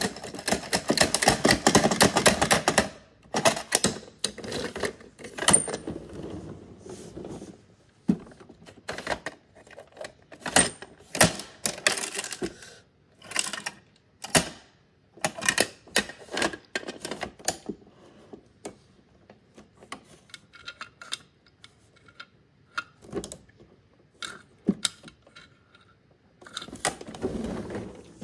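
Plastic clicking and clattering of a toy garbage truck's hand-worked lifting arm and small toy wheelie bins: a fast run of clicks for the first few seconds, then scattered separate clicks and knocks.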